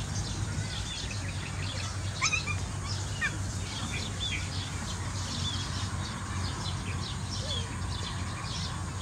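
Small birds chirping and calling over and over, with one louder call about two seconds in, over a steady low hum.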